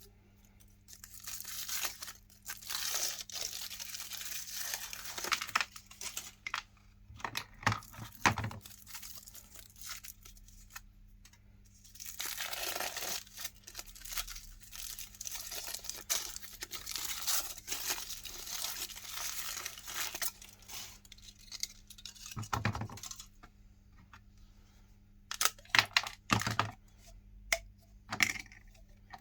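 Foil wrapping of chocolate Santa Claus figures being torn and crinkled off in two long spells, with a few sharp knocks in between and near the end.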